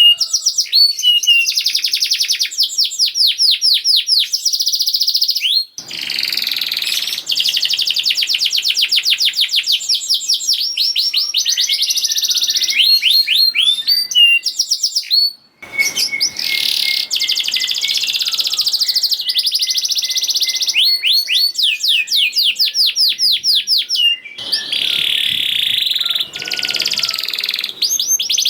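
Domestic canary singing a long, fast song of tightly repeated high-pitched trills and rolls, with two short breaks, about six seconds in and about fifteen seconds in.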